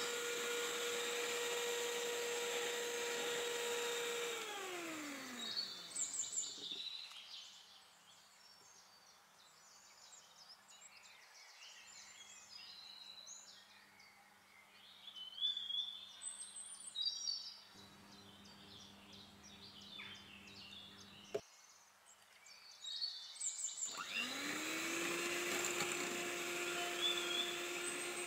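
Electric hand mixer whisking eggs and sugar, its motor running with a steady whine that slides down and stops about four seconds in as it is switched off. In the quieter stretch that follows, birds chirp in the background and there is one sharp click. About 24 seconds in the mixer starts again, rising to a steady, lower whine as it beats in the oil.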